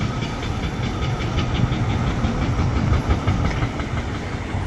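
Heavy diesel construction machinery, an excavator, running steadily with a low rumble and faint rapid ticking over it.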